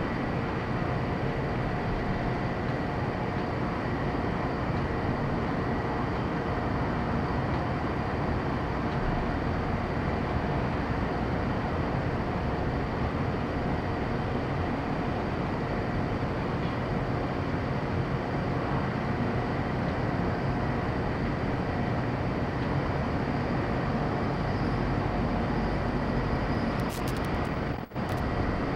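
Antonov An-124's four D-18T turbofan engines running steadily: a constant rumble with a steady high whine over it, briefly dropping out near the end.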